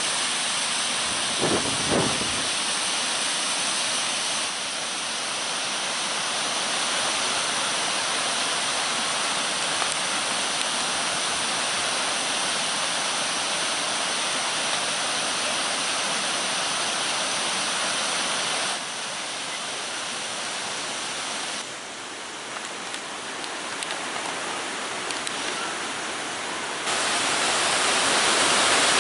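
Shallow stream rushing and rippling over stones in a steady wash of water noise. Its level steps up or down a few times, and there are a couple of low thumps about two seconds in.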